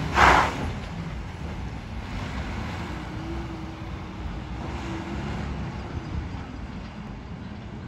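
DAF CF gritter lorry's diesel engine running as it pulls away over a wet road, its low rumble fading with distance. A short, loud hiss comes right at the start.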